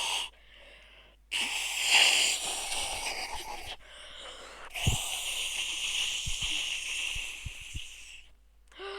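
Air blown hard into cupped hands in an attempt at a hand whistle: two long, breathy rushes of air with no whistle tone, a failed attempt.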